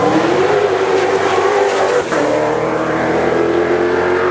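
Cross-country rally pickup's engine running hard, its pitch rising and falling with the throttle. About halfway through, the sound breaks off abruptly into a steadier engine note held at high revs.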